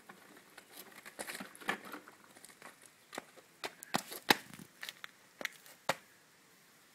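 Scattered light clicks and scuffs of a small child's shoes stepping on stone paving and gravel, loudest about four seconds in.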